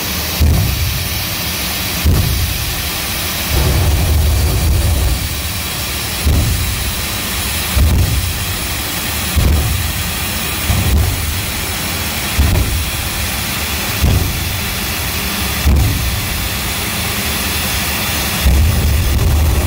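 Jet truck's jet engine running with a steady hiss. Deep low thumps come about every one and a half seconds as the afterburner is fired in bursts.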